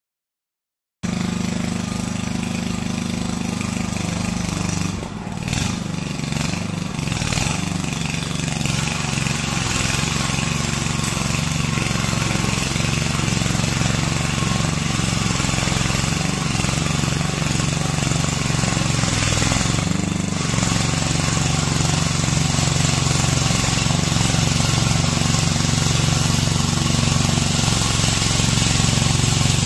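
Tielbürger walk-behind weed brush running: its small petrol engine drones steadily while the spinning wire brush scrapes over concrete paving joints, a harsh scratching over the engine note. It starts about a second in, and the scraping thins briefly around five seconds in and again near twenty seconds.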